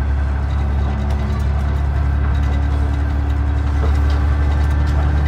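Diesel railcar's underfloor engine running steadily, heard from inside the passenger cabin as the train moves, with a few faint clicks.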